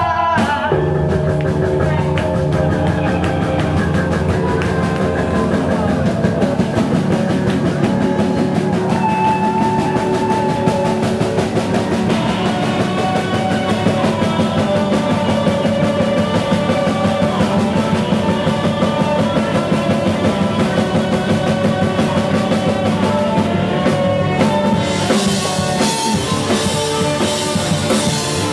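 Live rock band playing an instrumental passage: steady drum-kit beat under sustained melodic lines. The cymbals and top end grow brighter near the end.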